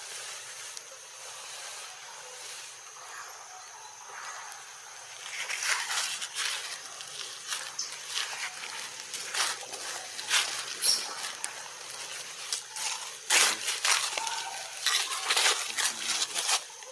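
A steady high insect drone, joined from about five seconds in by irregular crackling and rustling clicks, loudest near the end.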